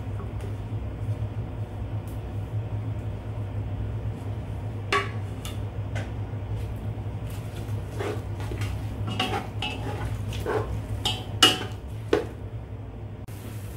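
A spatula knocks and scrapes against a nonstick pot as sliced onions are stirred in hot oil. The knocks come singly about a third of the way in and then as a quick run of clacks in the second half, over a steady low hum.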